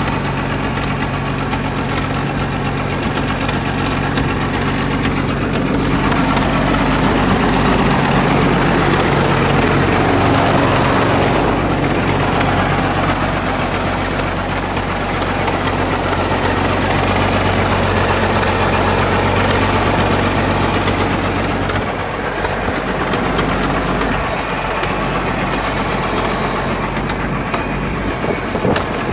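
Caterpillar D8 crawler tractor's engine running steadily at idle, a little louder from about six seconds in until about eleven seconds.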